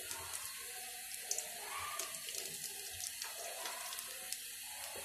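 Cornflour-coated potato wedges frying in hot oil in a kadhai: a steady sizzle with scattered small crackles and pops as more pieces go into the oil.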